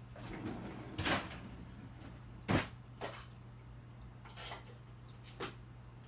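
Five short knocks and clunks of things being handled, the loudest about two and a half seconds in, over a steady low hum.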